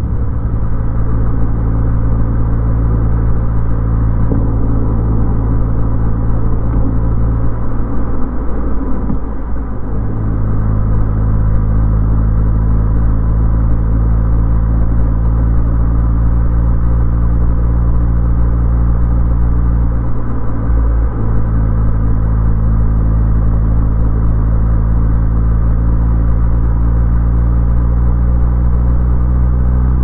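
Car driving at a steady speed: engine hum and road noise, with the engine note shifting about a third of the way in and again briefly later on.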